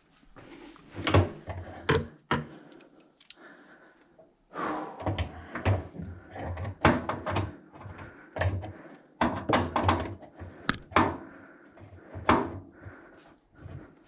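A string of irregular knocks and clunks from things being handled and moved, several close together at times, with a quieter pause about four seconds in.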